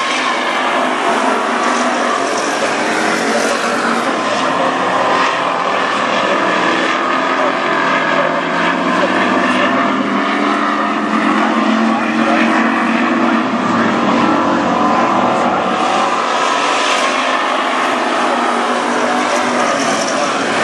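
A pack of WISSOTA street stock race cars with V8 engines running hard at racing speed, loud and continuous, the engine pitch rising and falling as cars accelerate and pass, with one clear sweep partway through.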